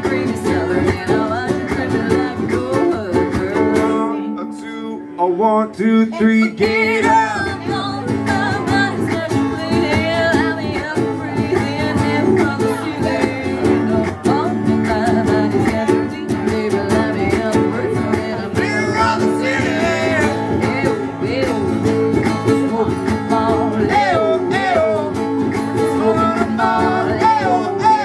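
Live acoustic duo: acoustic guitar and ukulele strummed while a woman and a man sing. The low accompaniment drops out briefly about four seconds in, leaving a held note, then the full strumming comes back in about six seconds in.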